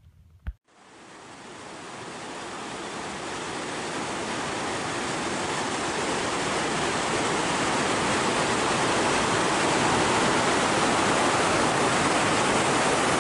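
Rushing water of a waterfall pouring over a rock ledge into churning water below, a steady water noise that fades in gradually over the first several seconds.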